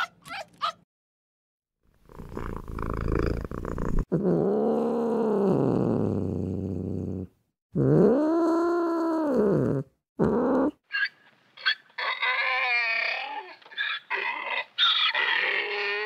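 Leopard cat calling: two long meowing yowls that rise and then fall in pitch, followed by a run of shorter, higher, wavering cries. A few quick clicks sound at the very start.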